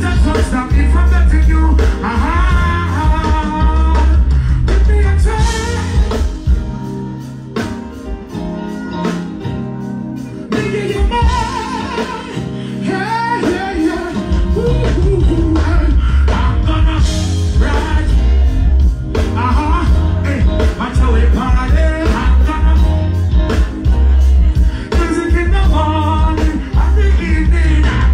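Live reggae band with a male singer: heavy bass and drums, electric guitar, and a singing voice over them. The bass drops out for several seconds in the middle, then comes back in.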